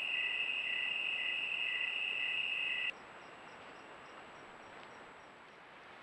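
Crickets trilling: one steady high trill with a second chirp pulsing about three times a second. Both cut off about three seconds in, leaving a fainter trill and soft, quick, regular ticks.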